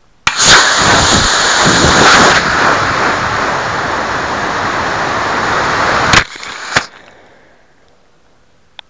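Estes C6-4 model rocket motor igniting with a sudden loud rushing hiss, heard from on board the rocket. The hiss is brightest for about the first two seconds of thrust, then gives way to a steadier rush of air and motor noise as the rocket flies out of control. About six seconds in the noise stops abruptly with a sharp crack as the rocket slams into the ground, and a second bang follows half a second later as the ejection charge fires with the nose sealed in the ground, destroying the rocket.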